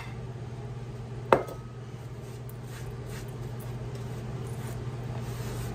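A single sharp clink of kitchenware with a short ring, about a second and a half in, over a steady low background hum.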